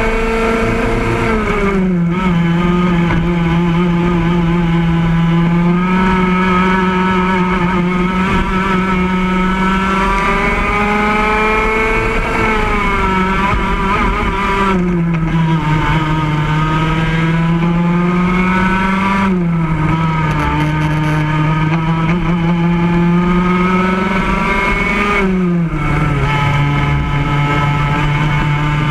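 Racing kart engine heard from onboard at full race pace, its note climbing steadily along each straight and dropping sharply several times as the driver lifts for corners, then climbing again.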